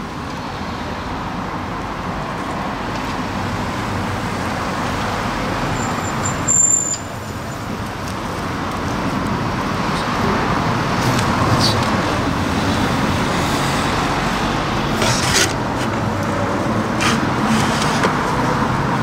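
Road traffic passing steadily, swelling about halfway through, with a short loud burst about six and a half seconds in and a few light clicks near the end.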